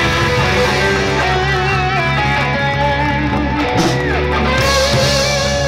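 Live rock band playing through amplifiers: electric guitars, bass and drums, with a lead line of bending, wavering notes and a long held note near the end.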